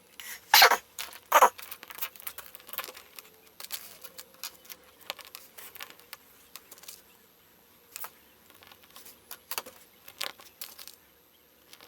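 Small plastic LEGO pieces clicking, tapping and rattling as they are handled and snapped together, in irregular sharp clicks with a few louder ones.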